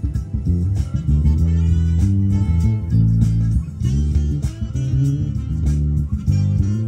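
Five-string electric bass played fingerstyle, a busy jazz line of low notes, played along with a jazz recording that has drums.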